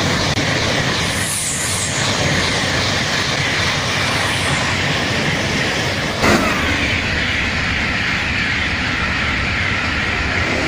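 Frecciarossa high-speed electric trains passing at speed close by: a loud, steady rushing noise of wheels on rail and moving air. About six seconds in, it cuts abruptly to a second passing train.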